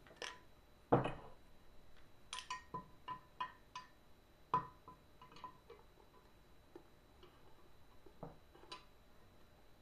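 Cast-iron hand pump parts knocking and clinking as they are handled and fitted back together. A solid knock comes about a second in, then a quick run of light metallic clicks with a short ring, another knock a little later, and scattered small clicks.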